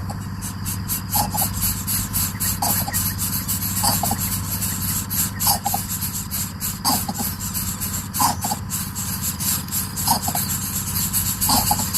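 Short, squealing calls repeated about every one and a half seconds, over a constant high chirring of insects.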